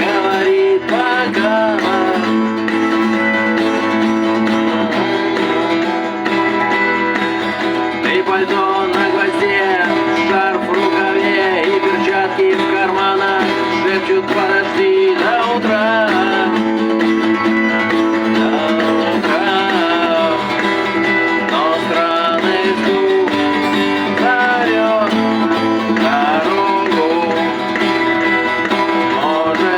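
Music led by acoustic guitar, playing steadily throughout.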